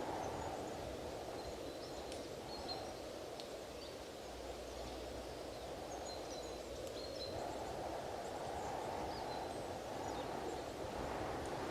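Strong wind gusting, easing off in the middle and picking up again near the end, with small birds chirping faintly and briefly over it.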